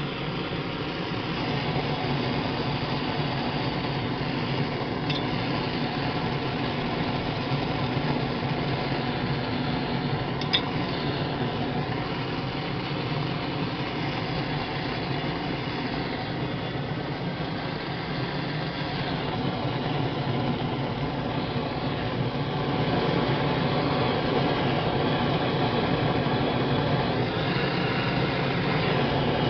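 Propane torch burning with a steady hiss as it heats an aluminium brake lever, getting a little louder about three-quarters of the way through. A single faint click about ten seconds in.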